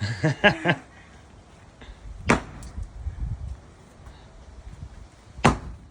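Sledgehammer striking concrete twice, about three seconds apart, each blow a sharp loud crack.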